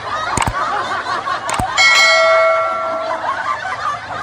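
Subscribe-button animation sound effects: mouse clicks about half a second and a second and a half in, then a notification bell chime that rings about two seconds in and fades over about a second.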